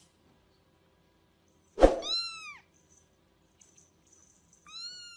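Small kitten mewing twice: two short, high calls that each rise and then fall in pitch. The first comes about two seconds in, just after a sharp click, and the second near the end.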